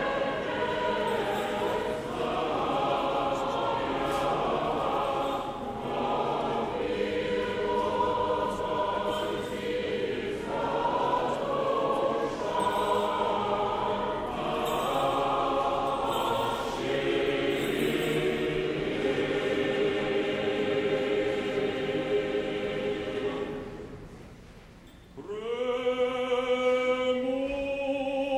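Russian Orthodox church choir singing a vigil hymn unaccompanied, many voices together. The singing fades about 24 seconds in, and a new chant starts a second later on long held notes.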